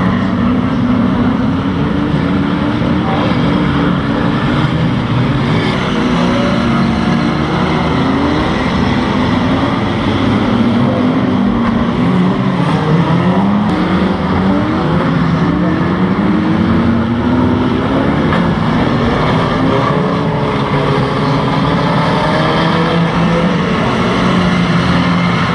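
Pre-1980 classic banger racing cars' engines running hard together in a race, several engine notes rising and falling as the cars accelerate and ease off.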